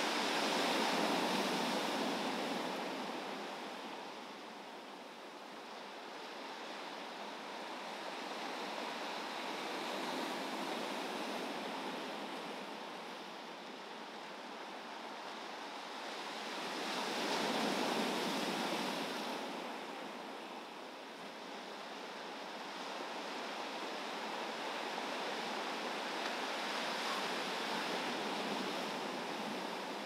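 Ocean surf with wind: big waves breaking and washing ashore in slow surges, the loudest about a second in and again just past the middle, with smaller swells between.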